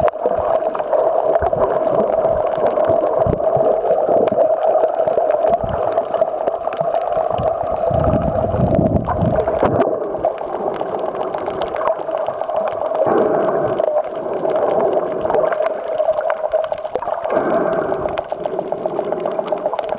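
Muffled rushing and gurgling of water around a camera held underwater, with a steady hum running through it and irregular low surges.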